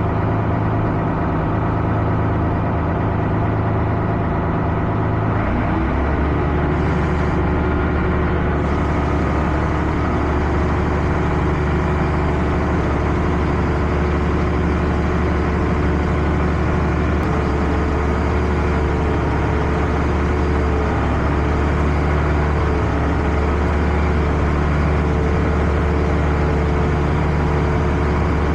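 Combine harvester engine running steadily. About five seconds in, the engine note rises and the revs then hold at the higher setting.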